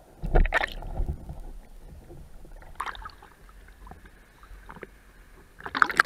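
Water splashing and sloshing around a diver and a pole-mounted camera as they break through the sea surface, loudest just after the start and again near the end as the camera dips back below the waterline.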